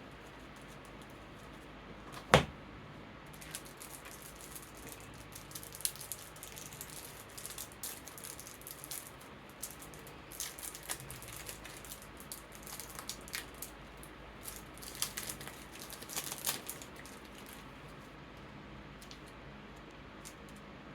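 Cards being handled and slid into plastic card sleeves: many small crisp rustles and clicks, with one sharp knock on the table about two seconds in, over the steady hiss of an electric fan.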